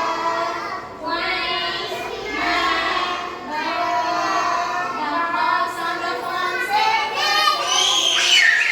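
Children singing together.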